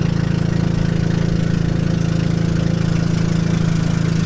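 Small boat's engine running steadily under way, a low even drone with a fast, regular putter.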